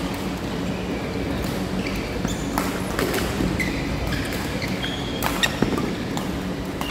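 Badminton rally: rackets striking a shuttlecock several times in sharp cracks, with short squeaks of shoes on the court floor, over a steady hall hum.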